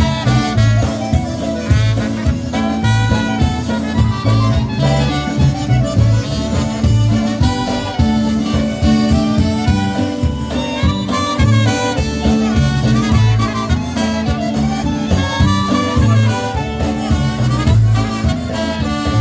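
Live polka band playing an instrumental polka, with a steady oom-pah beat in the bass under horn and accordion melody lines.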